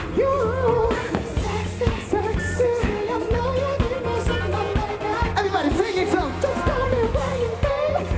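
Pop music: a wordless, wavering vocal line sung over a steady, pulsing bass beat.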